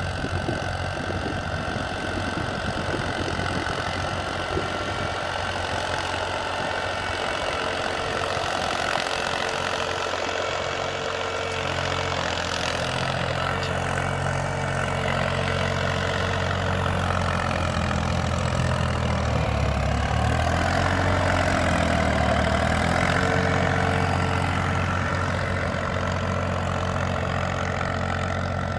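Mahindra 265 DI Power Plus tractor's three-cylinder diesel engine running steadily under load while pulling an 11-tine cultivator through the soil. It grows louder through the middle as the tractor passes close by, then eases off as it moves away.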